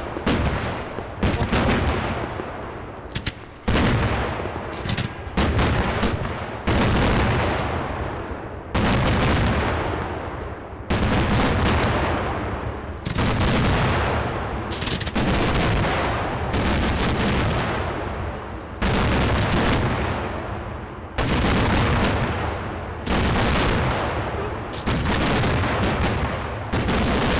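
Fireworks going off in a steady series of loud bangs, about one every two seconds, each trailing away over a second or so, with smaller cracks in between.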